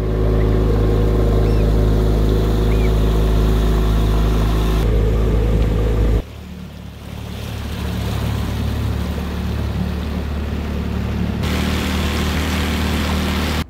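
Outboard motor driving a small open boat along at speed, a steady engine drone. About six seconds in the sound drops abruptly and changes to a lighter drone that builds back up and runs on steadily.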